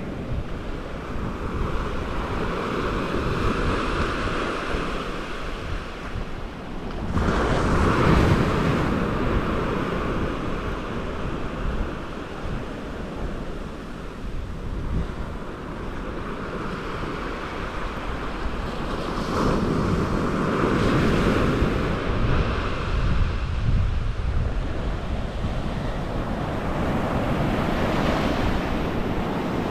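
Small surf breaking and washing up a sandy beach, the wash swelling and ebbing, with louder surges about 7 seconds in, around 20 seconds and near the end. Wind buffets the microphone throughout.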